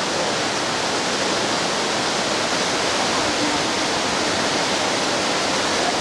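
Waterfall cascades pouring into a plunge pool: a steady rush of falling water.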